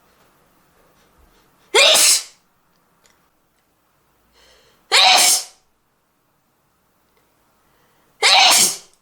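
Three loud sneezes from one person, about three seconds apart, each a sudden burst lasting about half a second.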